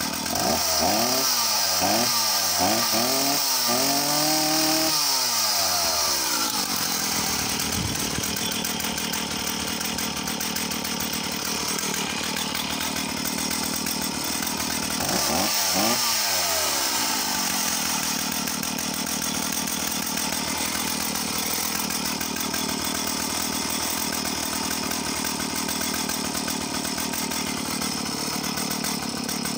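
Stihl 045 AV vintage 75cc two-stroke chainsaw running, blipped on the throttle about four times in the first five seconds, the last rev held a little longer. It drops back to a steady idle, revs briefly again about halfway through, and then idles on, ticking over really nicely.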